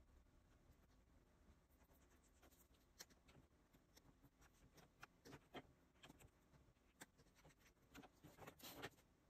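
Faint, irregular taps and scratchy strokes of a stylus on a pen display's screen, mixed with occasional keyboard key clicks.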